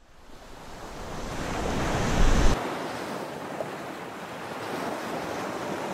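Surf washing onto a sandy beach, with wind buffeting the microphone as a low rumble that stops abruptly about two and a half seconds in.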